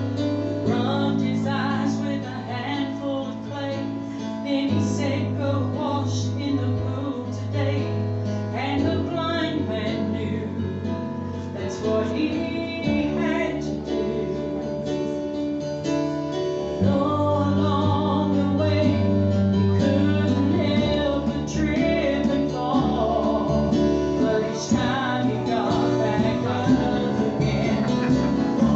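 Gospel group singing a song to acoustic guitar accompaniment, a woman's voice prominent.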